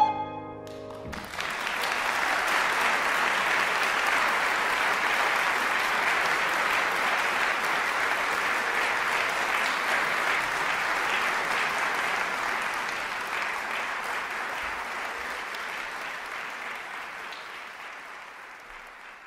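A soprano's final held note stops at the very start and the music dies away; about a second in, the audience breaks into applause that holds steady and then fades out over the last few seconds.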